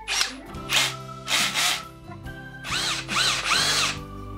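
Parkside Performance 20 V brushless cordless drill run in about five short trigger pulls. Each is a brief whine that rises as the motor spins up and falls away as it stops.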